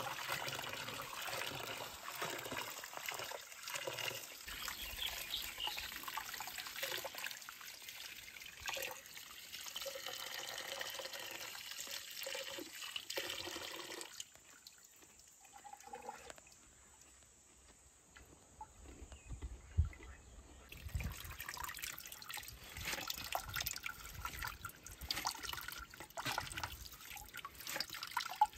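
Water running from a small outdoor tap and splashing into a bucket of water as radishes and greens are rinsed by hand. The sound drops away for several seconds around the middle, then the running and splashing resume.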